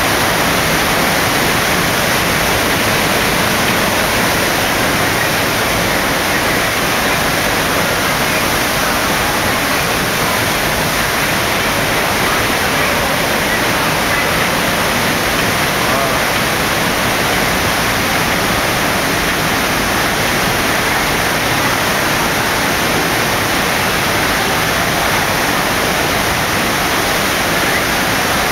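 FlowRider standing-wave machine: a loud, steady rush of pumped water streaming up over the ride surface.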